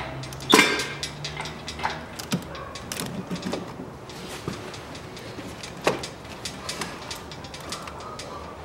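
Irregular metal clicks and clanks of hand work on an engine hanging from a lifting chain while its mount is unbolted. The loudest clank comes about half a second in.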